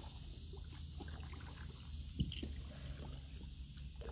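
Kayak paddle strokes in the water while paddling upstream against the current, with the blades dipping and dripping in a run of small splashes and clicks. A single sharper knock comes about two seconds in.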